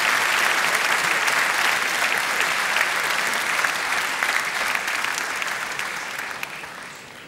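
Large crowd applauding steadily, the applause dying away over the last two seconds or so.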